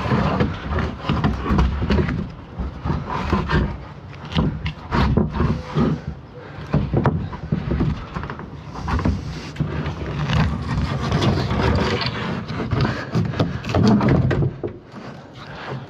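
A wooden bed deck for a truck camper being slid and shifted into place: irregular knocks and scrapes of wood on wood.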